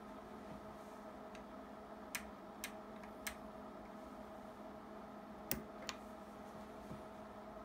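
Five sharp clicks from the controls of an oscilloscope and a homemade op-amp test box being worked by hand: three spaced clicks a few seconds in, then a louder pair about a second apart near the end, as a switch setting changes. Under them is a steady low hum from the running bench equipment.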